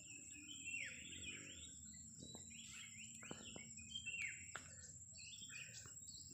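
Wild birds chirping, with many short calls and quick falling and rising whistles. A steady high-pitched whine runs underneath.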